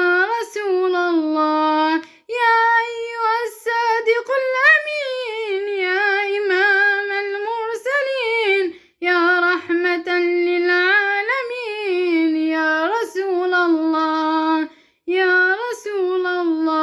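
A female voice singing an Islamic nasheed unaccompanied, in long melismatic phrases with short breaks for breath about two, nine and fifteen seconds in.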